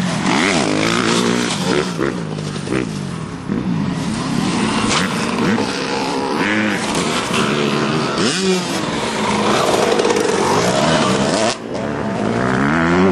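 Several dirt bikes riding around a pit, their engines revving up and down. Their pitch rises and falls as they pass, with one close pass about eight seconds in.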